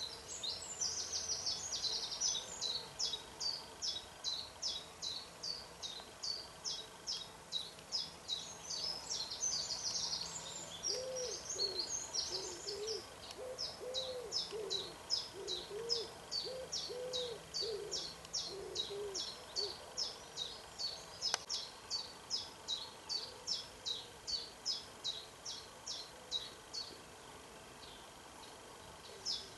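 Woodland birdsong: a small bird repeating a high note about three times a second, with denser high calling in the first half. From about 11 to 19 seconds, a lower bird call of about ten rounded cooing or hooting notes is repeated underneath.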